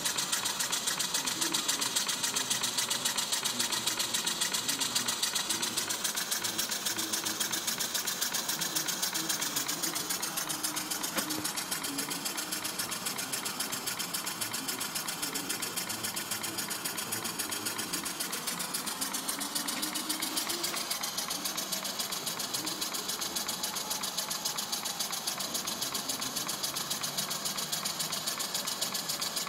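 Model single-cylinder horizontal steam engine running at speed, with a fast, even beat of exhaust puffs over a steady hiss.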